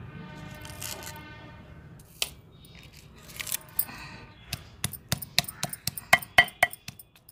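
Stone grinding pestle (batta) pounding on a flat stone slab (sil) to crush tomato, green chilli and onion: a quick run of sharp stone-on-stone knocks, about four or five a second, starting about halfway through. Before it comes a fading pitched ringing and a few scattered knocks.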